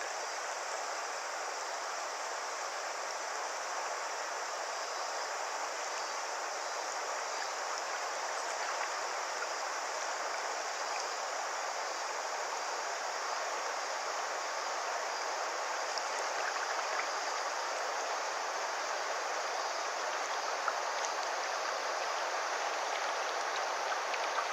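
Steady sound of river water flowing.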